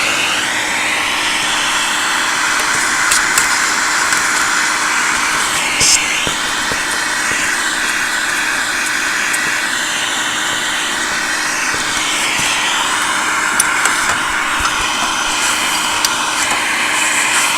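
Vacuum cleaner running steadily as its nozzle sucks dust out of a vintage tube radio's chassis. The pitch of the airflow shifts as the nozzle moves, with scattered small clicks and one louder click about six seconds in.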